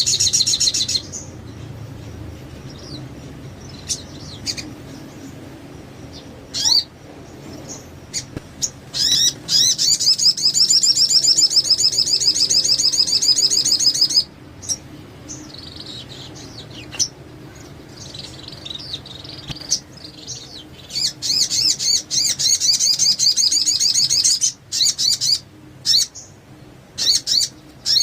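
Sogon songbird singing in full voice: short, sharp, high calls, then long, fast, high trills of several seconds, about ten seconds in and again past twenty seconds.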